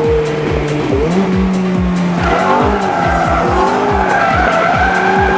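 Ferrari F430's tyres squealing as it drifts; the squeal wavers in pitch and sets in strongly about two seconds in. Background music with a steady beat plays throughout.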